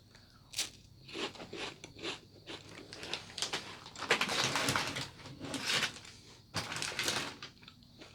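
Close-up crunching and chewing of a crispy salted egg roll biscuit snack, in irregular bites with a denser run of crunches midway.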